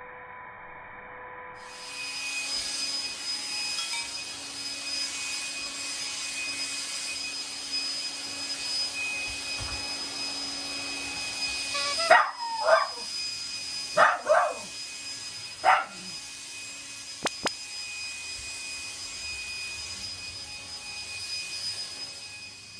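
Cordless stick vacuum cleaner switched on about two seconds in and running steadily with a high whine. Around the middle, a Shiba Inu barks about five times at the running vacuum, which he treats as an enemy.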